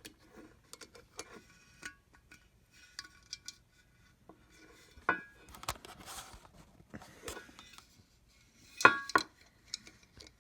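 Small steel hip flask being handled, with scattered light metal clicks and two louder clinks, about five and nine seconds in, that ring briefly.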